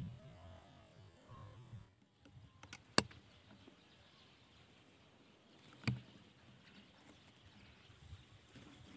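Two sharp clicks about three seconds apart, the second heavier with a low thump, over faint outdoor background.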